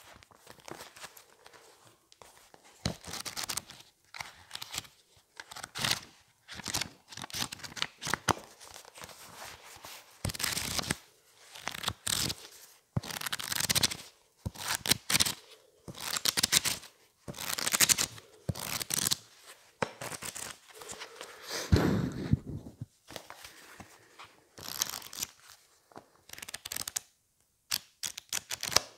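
Pages of a softcover textbook being flipped and riffled fast: quick papery flutters and snaps in irregular bursts, with short gaps between.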